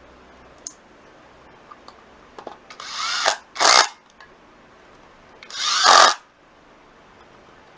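Cordless power driver running in the fixing screws of a motorcycle scooter's new stator (generator coil), in three short whirring bursts that each build up and then stop.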